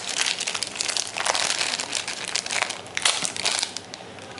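Packaging crinkling and crackling as a phone's wall charger and its wrapping are handled, dying down near the end.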